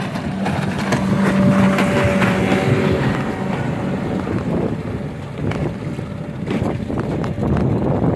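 Engine of a small homemade fiberglass motorboat running under way, a steady hum clearest for the first three seconds, with wind on the microphone and several sharp knocks in the second half.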